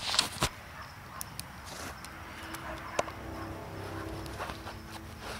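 Handling noise from a handheld camera being moved around: rustling with a few sharp knocks in the first half-second and another about three seconds in. A faint steady low hum comes in about halfway.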